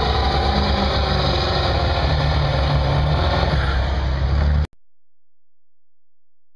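Diesel pickup truck engine, a Ford Super Duty, running hard at full throttle while pulling a weight-transfer sled. The sound is loud and steady, then cuts off abruptly about three-quarters of the way through.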